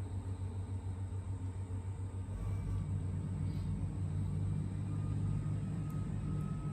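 Low, steady mechanical rumble that grows louder about two seconds in, with a faint thin whine coming in near the end.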